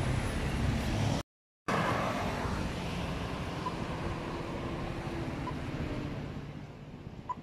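City street traffic noise: a steady rumble of passing cars, which drops out completely for a moment about a second in and grows quieter near the end.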